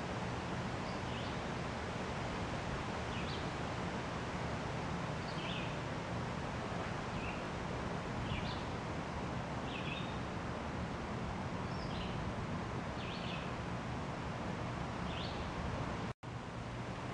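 Steady outdoor background hum with faint, short, high bird chirps every second or two. The sound cuts out for an instant near the end.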